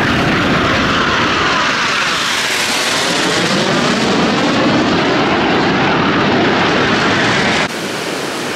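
Aermacchi MB-339 jet trainers' turbojets passing low and loud, a dense rushing jet noise whose tone sweeps as the aircraft go by. Near the end the sound cuts abruptly to quieter, thinner jet noise.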